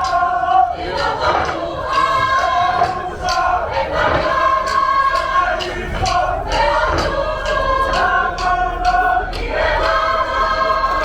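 A large group of voices singing together in held, chant-like phrases, a Pacific Islands school choir performance, with sharp percussive strikes keeping time.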